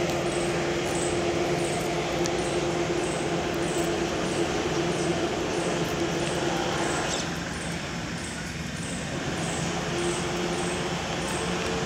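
Steady mechanical hum with a low drone, easing off briefly a little past the middle, and faint ticking about twice a second.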